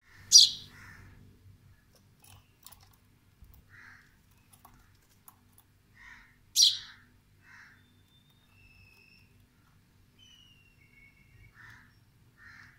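Baby sparrow chirping: two loud, sharp, high chirps about six seconds apart, with softer short chirps scattered in between and near the end.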